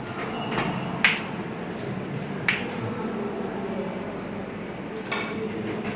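Snooker shot: the cue tip clicks against the cue ball about a second in, and the balls knock together sharply a second and a half later, over a steady low room hum.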